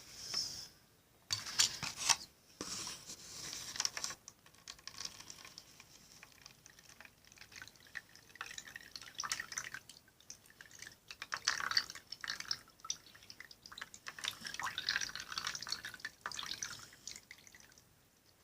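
A sticky glue-and-toothpaste slime mixture being stirred and scraped around a bowl, with irregular wet clicks and taps.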